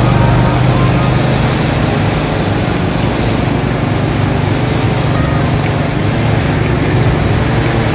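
Brush cutter and ride-on lawn mower engines running steadily together while cutting tall grass, a constant low drone.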